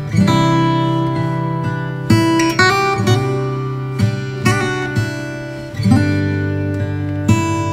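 Background music of strummed acoustic guitar chords, each strum ringing on until the next.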